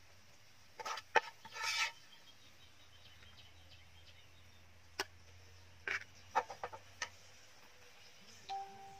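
Metal spatula clinking and scraping against a ceramic plate while stir-fry is scooped onto rice, in a few short bursts of clicks and scrapes.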